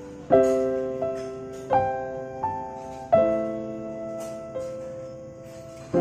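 Slow, gentle background piano music: chords struck every second or so, each ringing out and fading before the next.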